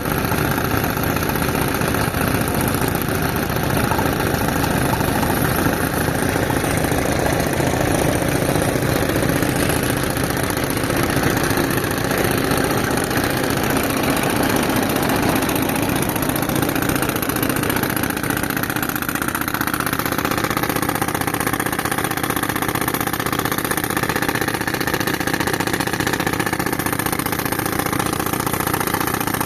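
Tractor engine running steadily to drive an air compressor, a continuous mechanical drone whose tone shifts slightly about twenty seconds in.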